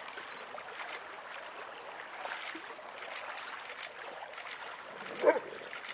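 Several dogs running over leaf-covered ground, with faint rustling and footfalls over a low steady outdoor background, and one short dog yelp about five seconds in.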